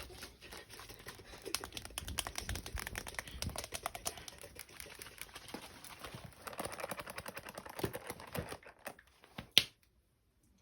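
Rapid, irregular close-up tapping and clicking, ASMR-style. A single sharp click comes about nine and a half seconds in, then the sound drops away.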